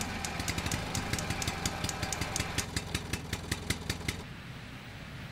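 An engine idling with a rapid clatter, which drops away to a quieter hum about four seconds in.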